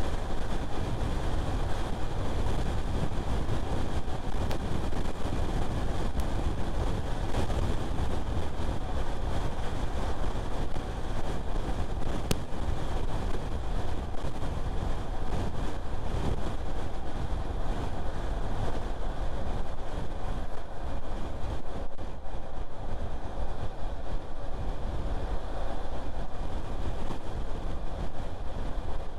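Car being driven: steady road and wind noise with a low rumble, even throughout.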